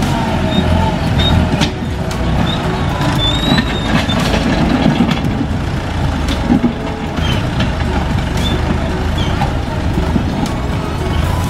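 Landini DT85 4WD tractor's diesel engine running steadily under load as its front blade pushes mud and limestone, with scattered clicks and knocks.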